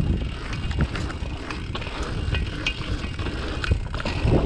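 Dirt jump bike ridden hard around a pump track: tyres rolling, wind buffeting the action camera's microphone as a low rumble, and the bike's chain and hub rattling and clicking over the rollers.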